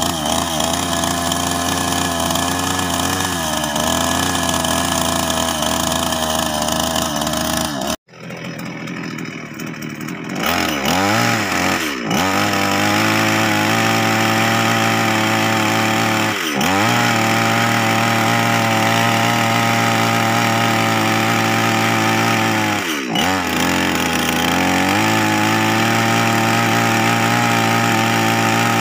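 Two-stroke gasoline chainsaw running steadily, cut off abruptly about eight seconds in, then running again with its engine speed dipping and recovering three times.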